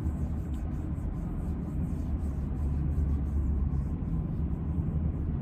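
Steady low vehicle rumble heard from inside a parked car's cabin.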